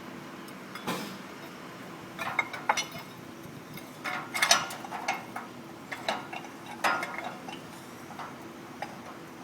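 Metal clinking and clattering of hand tools and hardware, in irregular clusters of a few sharp clinks, over a steady low hum.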